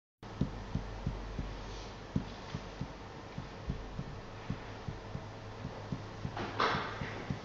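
Meeting-room tone: a steady low hum with faint, regular low ticks about three a second. The sound cuts out briefly at the very start, and there is a short rustling noise near the end.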